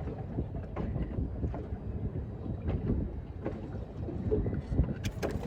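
Wind buffeting the microphone on a small boat, with scattered knocks and handling clicks, the clicks growing sharper near the end.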